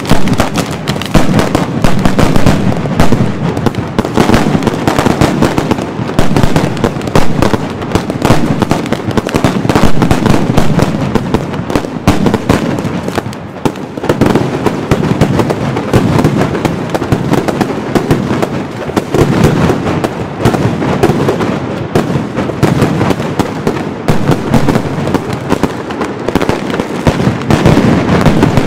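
Mascletà firecrackers and salute shells going off in a dense, unbroken barrage of rapid bangs that overlap into a continuous rumble.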